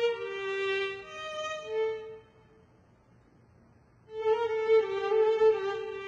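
Solo violin playing a slow melody of long held notes. About two seconds in it falls almost silent for about two seconds, then comes back in.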